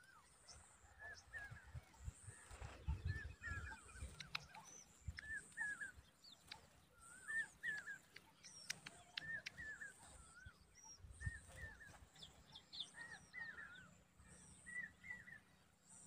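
Faint bird chirping: short hooked chirps repeating every second or so, with a few higher ones, over low rumbles and a faint high buzz that comes and goes.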